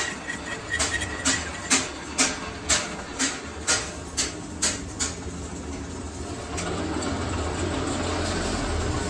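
Sharp knocks, about two a second, for the first five seconds over the hum of a running lathe; the knocks stop and the machine noise grows louder and steadier after about six and a half seconds.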